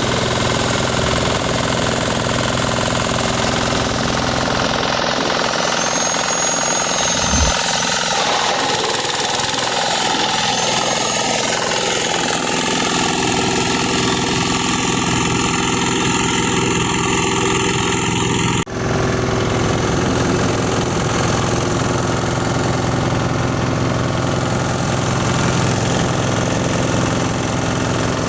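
Engine-driven grass chopper machine running steadily, with a loud, even mechanical din. There is a brief dropout about two-thirds of the way through.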